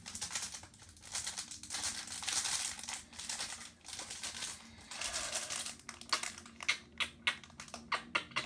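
Foil Pokémon booster pack wrapper crinkling as it is torn open, then a quick run of sharp clicks near the end.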